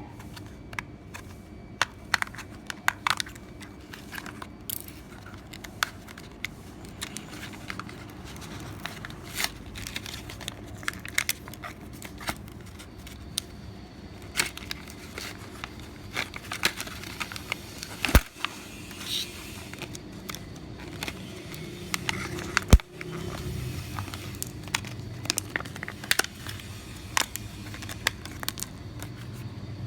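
Close handling of small objects and crinkly plastic packaging: scattered clicks, crackles and rustles, with two louder snaps about four and a half seconds apart past the middle.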